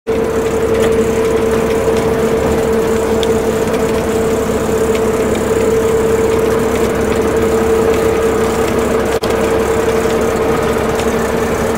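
Steady engine drone and running noise of a bus, heard from inside the passenger cabin, with a constant mid-pitched hum.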